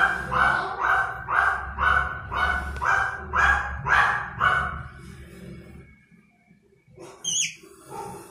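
A dog barking steadily, about two barks a second, stopping about four and a half seconds in; near the end a short high-pitched squeak.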